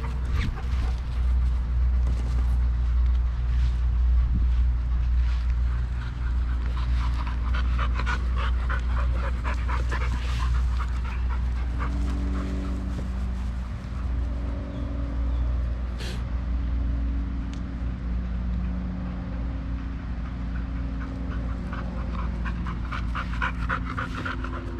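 Dogs panting hard and fast close by, a quick steady rhythm of breaths, winded from chasing a thrown ball.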